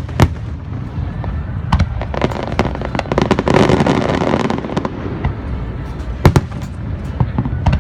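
Aerial fireworks bursting: sharp bangs over a steady low rumble, with a stretch of dense crackling near the middle and a pair of loud bangs about six seconds in.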